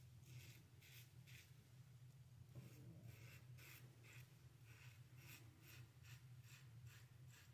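Faint rasping of a Gillette 7 O'clock Super Stainless double-edge blade in a 1962 Gillette Slim Adjustable safety razor, cutting lathered neck stubble in short scraping strokes, about two a second.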